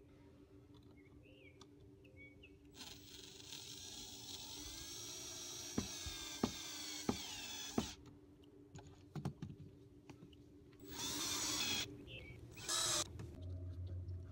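Cordless drill-driver driving screws through a thin plywood frame into a wooden cabin side: a motor whine that rises and falls over about five seconds, with a few sharp knocks in the middle, then two shorter runs near the end.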